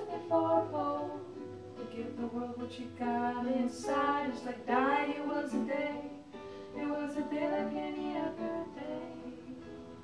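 Two women singing a folk-style song, accompanied by a strummed ukulele and an acoustic guitar.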